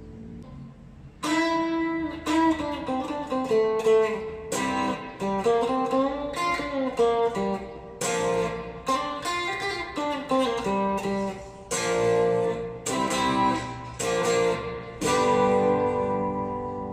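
2002 Gretsch Synchromatic Sparkle Jet electric guitar on its split TV Jones Powertron bridge pickup, played through a Vox VT40X modelling amp: a short riff of picked notes and chords with a few bends, starting about a second in and ending on a chord left ringing.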